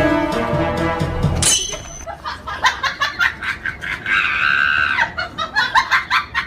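Music for about a second and a half, cut by a short high whistle, then a run of quick giggling laughter with a high held squeal in the middle, like a comic laugh sound effect.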